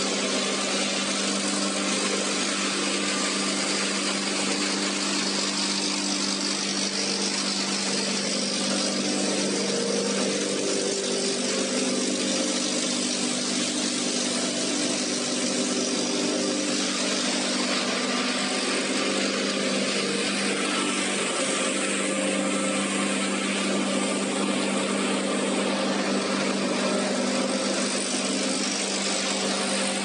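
Plastic film washing line running: the motors, wet grinders, friction washers and centrifugal dryer together give a loud, steady machine noise with a constant low hum and a broad hiss.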